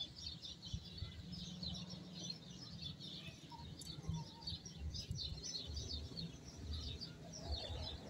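Fairly quiet chorus of many small birds chirping and twittering: dense short high chirps overlapping continuously, over a low uneven rumble.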